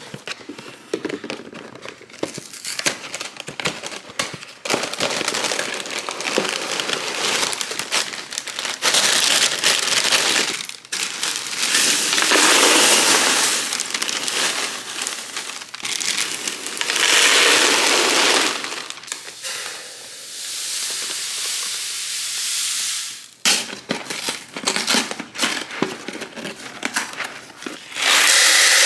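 Plastic packaging crinkling and rustling, with many small clicks and clatters of containers being handled and set down; the rustling comes in several louder spells.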